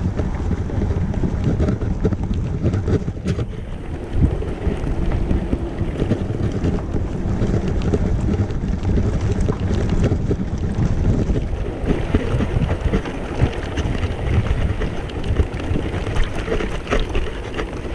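Wind rushing over the microphone and a steady rumble full of small knocks and rattles from a wheelchair with an Attitude electric handbike attachment riding over bumpy grass.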